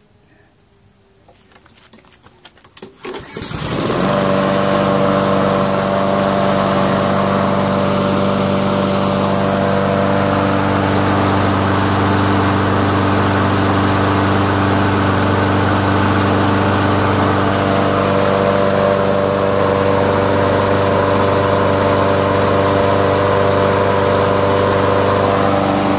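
Honda four-stroke lawn mower engine pull-started by its recoil cord: it catches about three seconds in and then runs at a steady speed, the carburetor freshly cleaned and the fuel line replaced.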